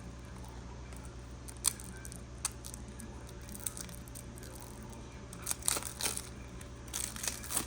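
Plastic wrapping being torn and crinkled off a deck of game cards, in scattered sharp clicks and short crackly rustles that come thicker in the last few seconds.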